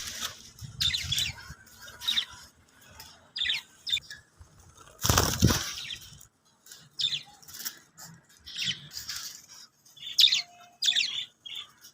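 Caged birds chirping in short, scattered calls, with a louder rush of flapping wings about five seconds in.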